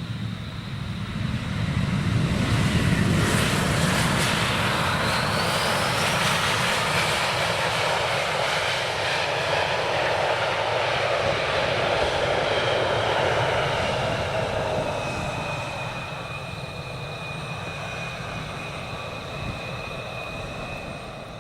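Jet airliner engines going past. The roar builds over the first couple of seconds, stays loud for about ten seconds, then eases, while a high whine drops in pitch as the aircraft goes by.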